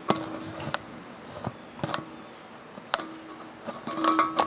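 Handling noise from a camera held at the metal neck of an empty liquid nitrogen dewar: scattered light clicks and knocks, with a steady low hum that comes and goes.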